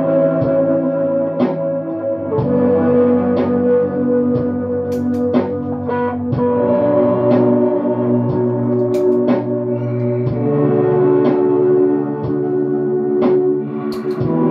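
Clean electric guitar from a Squier Telecaster, run through OBNE Dark Star and Procession reverb pedals and an ARP-87 delay into a Boss Katana-100 MkII amp: ambient improvisation of held chords that blur into long, overlapping reverb washes. Picked notes ring over the pad, and the chord changes about every four seconds.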